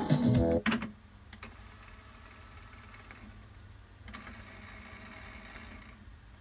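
Music playing from the tape stops with a button click less than a second in. The Denon DRW-850 cassette deck's transport then fast-forwards the tape with a faint, steady whir, and at about four seconds it clicks over to rewinding, a little louder.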